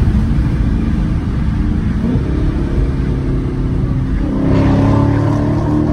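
Exhaust of a 2015 Dodge Charger SRT 392's 6.4-litre HEMI V8 with its mid mufflers deleted, heard from inside the cabin with the back windows cracked, under load at freeway speed. The note shifts about two seconds in and gets louder and fuller about four and a half seconds in.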